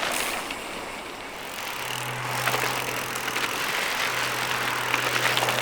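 Mountain bikes rolling along a dirt trail: a steady rush of tyre and drivetrain noise. A steady low hum comes in about two seconds in.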